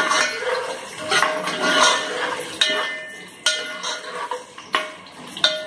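Steel ladle stirring sliced onions frying in oil in an aluminium pot, clanking against the pot about five times, each clank ringing briefly.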